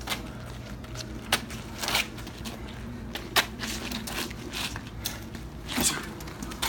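Two bare-knuckle fighters shuffling and scuffing their feet on wet tarmac, with about five short sharp smacks and scuffs, the sharpest about three and a half seconds in, over a steady low rumble.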